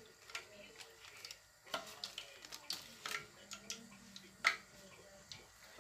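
Hot oil crackling around donuts frying in a pan: irregular sharp pops and ticks, the loudest about four and a half seconds in.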